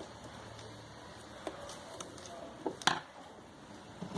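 A few light clicks and one sharper knock nearly three seconds in, from small parts being handled during work on an electric fan.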